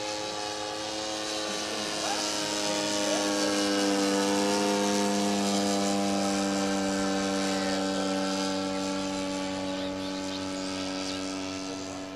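Radio-controlled Ziroli Fokker Dr.1 triplane's Quadra 35 single-cylinder two-stroke gas engine running steadily in flight. It grows louder to a peak about four seconds in as the model passes, then fades toward the end.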